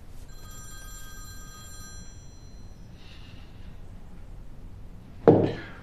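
A mobile phone sounding a single bell-like chime: a chord of high ringing tones that dies away over about two seconds. A brief, loud voice sound comes near the end.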